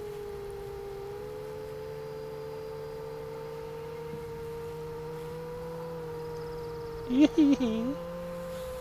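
FPV quadcopter's motors and propellers whining, a steady tone that drifts slightly in pitch with the throttle. About seven seconds in, a brief louder warbling sound cuts across it.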